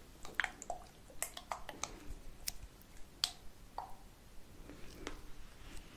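ASMR trigger sounds close to the microphone: a string of short, sharp clicks, unevenly spaced at about two a second, with no whispering.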